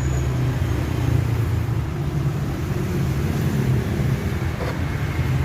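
Twin-tub washing machine's electric motor running with a steady low hum; a faint click a little before the end.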